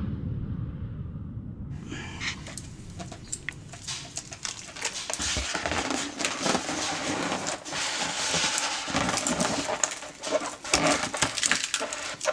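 Hands handling an inflated latex balloon and its ribbon: irregular rubbing, crackling and small squeaks, starting about two seconds in.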